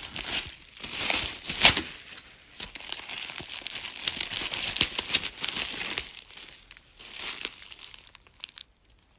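Packaging being handled and unwrapped: dense, irregular crinkling and rustling, with a loud crackle about one and a half seconds in, thinning out near the end.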